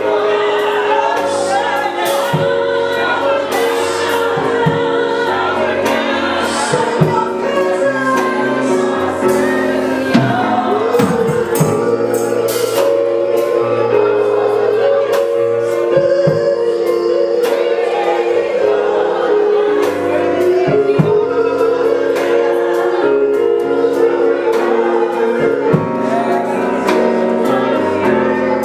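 Gospel song: choir singing, with long held notes that waver in vibrato, over a steady stepping bass line.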